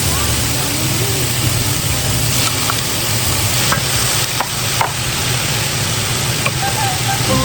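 Vegetables sizzling loudly in a hot sauté pan of butter and olive oil, a dense steady hiss with a few sharp pops in the middle.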